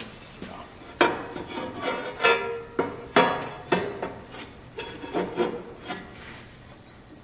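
Steel parts knocking and scraping together as a cut steel piece is worked into place over welded steel tubing: a string of sharp metallic clanks with some ringing, about a dozen over several seconds. It won't seat because weld spatter is in the way.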